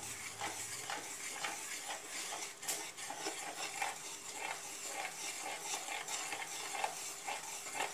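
Cake batter being beaten by hand in a plastic bowl: quick, uneven mixing strokes, a few a second, with soft scraping against the bowl.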